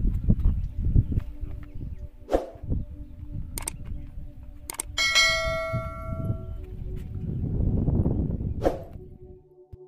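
Low wind rumble buffeting the microphone, broken by a few sharp clicks. About five seconds in, a bell-like chime rings and fades over a second or so: the sound effect of a YouTube subscribe-button animation. Soft ambient music starts just before the end.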